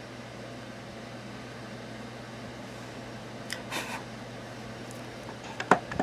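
Steady fan-like hum and air noise in a small room, with a short scratchy rustle about three and a half seconds in and a few sharp clicks near the end.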